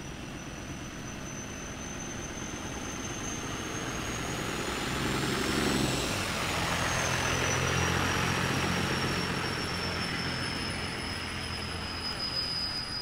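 A late-1950s Chevrolet flatbed truck's engine running as the truck rolls slowly past. It grows louder to a peak about six seconds in, then fades as the truck moves away. A thin high whine rises in pitch as the truck approaches and drops after it passes.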